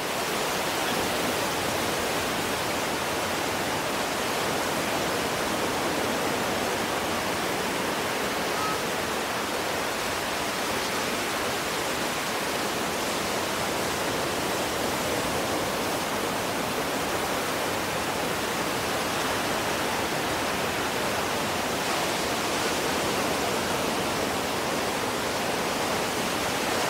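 Ocean surf breaking on the offshore reef: a steady, even wash of noise with no single wave standing out.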